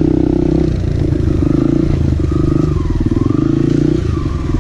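Kawasaki KLX pit bike's small single-cylinder four-stroke engine running under throttle, its revs rising and falling as it is ridden, heard from on the bike.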